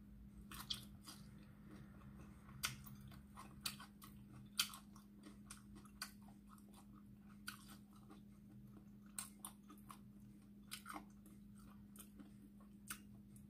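Close, faint chewing and gnawing of spicy chicken feet, with scattered sharp crunches and clicks as bits of bone and cartilage are bitten. A low steady hum runs underneath.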